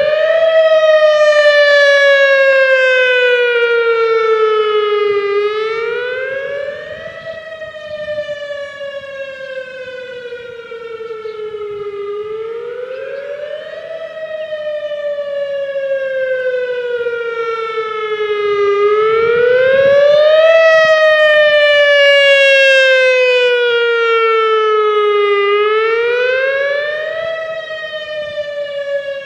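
Whelen WPS-2000R electronic outdoor warning siren sounding during a test. Its tone rises quickly, then falls slowly, repeating about every six to seven seconds. The loudness swells and fades as the rotating speaker head turns toward and away from the listener.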